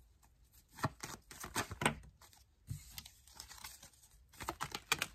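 Tarot cards being handled and a card drawn from the deck: irregular light clicks and rustles of card stock, starting about a second in.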